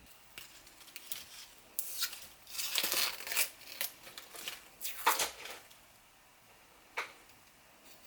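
Crinkling and tearing of a thin material being handled, in irregular bursts, loudest about three seconds in, with a few short sharp clicks.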